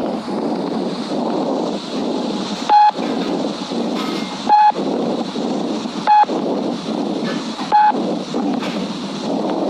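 Tracheal breath sound heard through a stethoscope: continuous airflow noise of breathing, with breathing in and breathing out equal in length. Four short beeps, louder than the breathing, sound about every second and a half.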